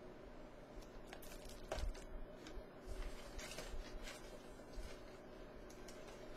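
Faint rustling and light clicks of items being handled in a cardboard shipping box, over a low steady room hum.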